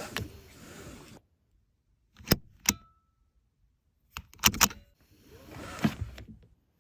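Handling noises inside a car: a short rustle, then two sharp clicks, then a quick cluster of clicks and knocks, and a longer rustle near the end, with silence between.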